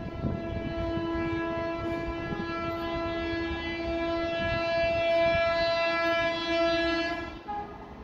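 Indian Railways train horn held in one long steady blast of about seven seconds, stopping shortly before the end, over the rumble of a train on the track.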